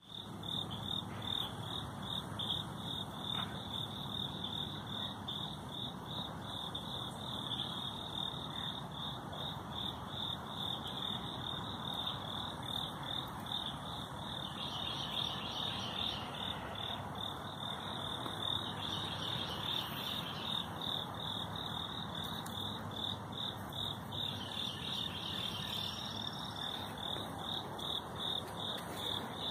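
A chorus of chirping insects: a steady, high-pitched pulsing trill that turns denser in two stretches around the middle, over faint low background noise.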